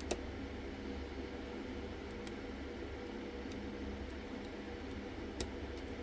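Lock pick working inside a dimple lock cylinder: a few faint metal ticks, with two sharper clicks, one right at the start and one near the end, over a steady background hum.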